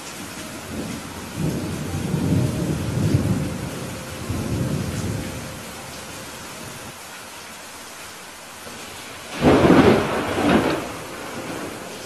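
Steady rain with a low rolling rumble of thunder in the first few seconds, then a sudden loud clap of thunder near the end, with a second crack about a second after it.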